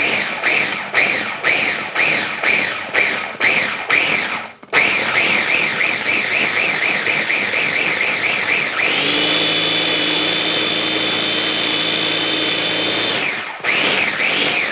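KitchenAid mini food chopper blending garlic, herbs, olive oil and softened butter toward a puree. The motor's whine wavers about two or three times a second and cuts out briefly about four and a half seconds in. About nine seconds in it settles into a steady, even whine for about four seconds, stops, and starts again near the end.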